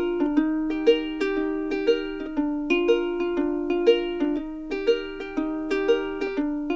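Background music: a light plucked-string tune with notes on a steady beat about twice a second.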